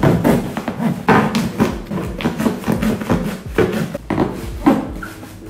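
Cardboard shipping box being opened by hand: packing tape tearing and peeling off the cardboard and the flaps scraping, in an irregular run of crackles and rasps.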